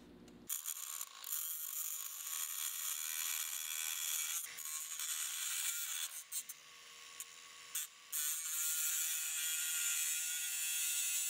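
Small handheld cut-off wheel grinding through the end of an over-long steel stud, a high-pitched whine and grinding that starts about half a second in. It dips briefly near the middle, eases off for a couple of seconds, then grinds steadily louder for the last few seconds.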